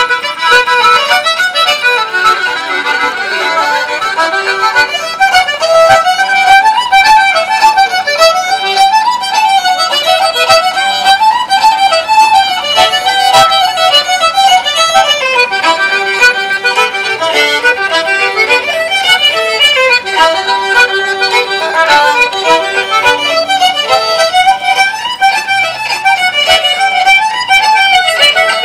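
Fiddle music: a fast tune played in quick runs of notes, going on steadily.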